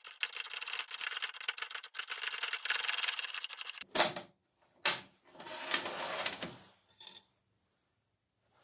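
Rapid ratchet clicking as the forcing screw of a jaw gear puller is wound in to draw a ball bearing off the bench grinder motor's armature shaft, followed by a sharp metallic knock about four seconds in and a short spell of metal rattling.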